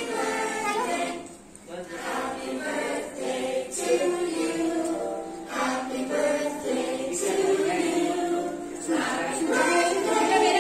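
A group of voices singing a song with music, in phrases with short breaks between them.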